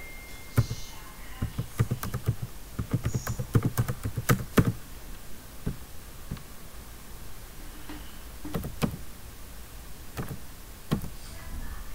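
Computer keyboard typing: a quick run of keystrokes for about three seconds, then a few scattered key presses or clicks later on.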